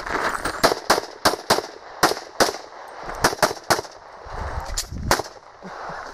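Pistol shots, about a dozen, fired mostly in quick pairs with short pauses between groups, as a shooter engages targets on a practical-shooting course of fire.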